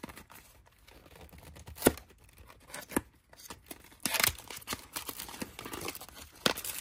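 Toy packaging torn open by hand: a few sharp tearing snaps with crinkling in between, the loudest about two seconds in and a longer rip around four seconds.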